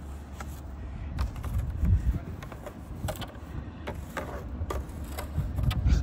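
Irregular crunches and scrapes in packed snow, a few sharp knocks among them, over a steady low rumble.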